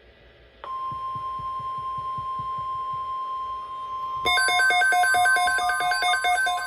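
NOAA Weather Radio warning alarm tone: a single steady 1050 Hz tone that starts about half a second in, after a short silence following the SAME header bursts. About four seconds in, a louder electronic alarm joins it, warbling quickly between several pitches.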